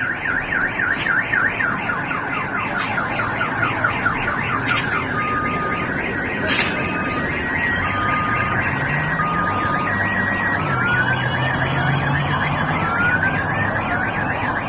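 Car alarm siren cycling through its tones: a fast warble, then steady beeps alternating between two pitches, then rising whoops near the end. A few sharp clicks sound over it in the first half.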